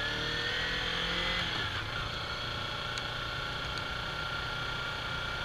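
Kawasaki Ninja 300 parallel-twin engine running under way, its note climbing gently over the first second or so and then holding steady.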